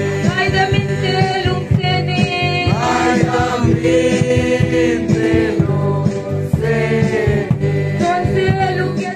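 Dance music with a singing voice over a steady beat, playing loudly and without a break; it cuts off abruptly at the very end.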